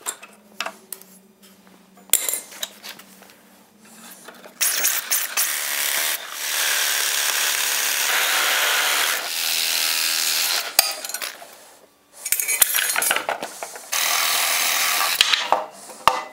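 Cordless reciprocating saw cutting through old carriage bolts between wooden boards and iron straps, running in several bursts of a second or more starting about four and a half seconds in. Sharp metal clinks sound between the cuts as the iron pieces are handled.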